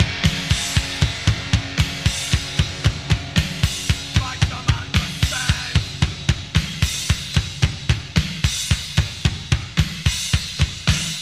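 Loud rock music in a drum-led passage: a fast, steady kick-and-snare beat with cymbals, about four hits a second, without singing.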